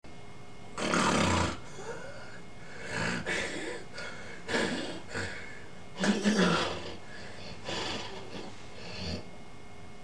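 Snoring: a series of noisy snores at uneven intervals, the loudest about a second in and about six seconds in.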